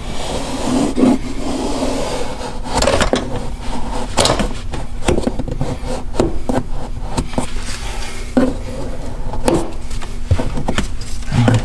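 Plastic trim tool scraping and rubbing along car interior trim panels and leather as the trim is tucked into place, with irregular clicks and knocks.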